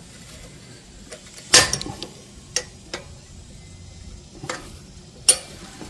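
A handful of irregular metallic clicks and clinks as a wrench tightens a nut and washer down on a bolt. The loudest clicks come about a second and a half in and near the end.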